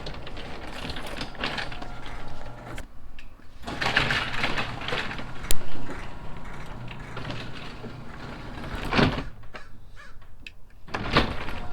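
Motorised garage door moving: the opener runs and the door rattles and creaks along its tracks, with a short pause about three seconds in and a sharp knock about nine seconds in.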